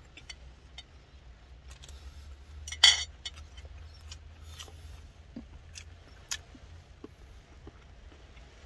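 A metal spoon clinking and scraping against a soup bowl and food container inside a car, with sparse light taps of rain on the roof. The loudest sound is a sharp clatter about three seconds in.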